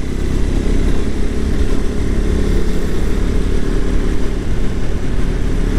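KTM RC 390's single-cylinder engine running steadily while the bike is ridden along the road, a dense low rumble with no change in pace.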